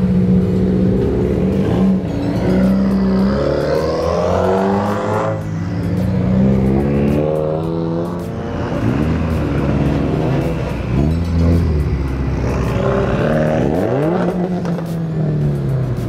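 Car engine revving repeatedly, its pitch rising and falling, with a sharp drop off the throttle about five seconds in.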